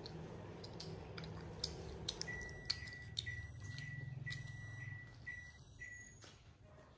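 Electronic beeping at one steady high pitch, about four beeps in a row starting about two seconds in, over a low steady hum and faint clicks of children eating.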